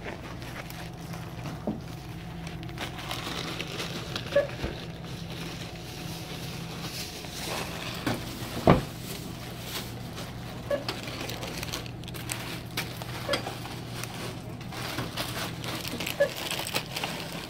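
Indoor room tone with a steady low hum, overlaid with scattered small clicks and rustles from a phone being handled, and one sharper knock about nine seconds in.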